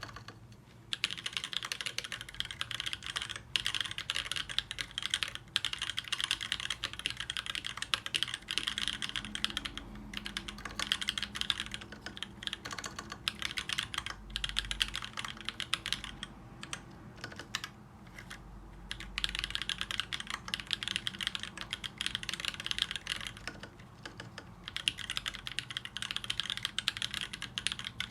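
Steady fast typing on a TGR Alice mechanical keyboard with lubed Tribosys 3204 tactile switches, Gsus springs and lubed stabilizers: a dense run of muted key clacks, broken by a few short pauses.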